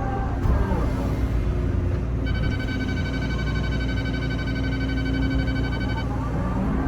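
Excavator diesel engine running steadily. About two seconds in, the grade-control system's high electronic beep tone sounds for about four seconds, then cuts off, signalling the bucket's depth against the target grade.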